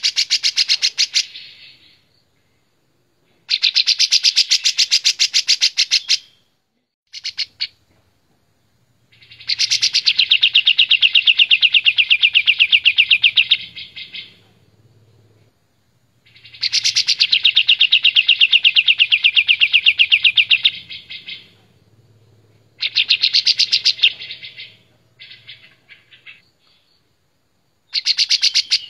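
Olive-winged bulbul (kapas tembak) singing loudly in phrases of rapid, evenly repeated notes that make a fast trill, each phrase about one to four seconds long with short pauses between. The two longest phrases, about nine and sixteen seconds in, run for around four seconds each; a short burst of loose notes comes near the end.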